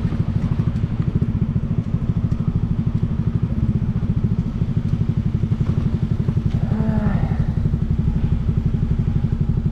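1970 Honda SS50's 49cc single-cylinder four-stroke engine putting along at low revs, a steady, fast, even pulse.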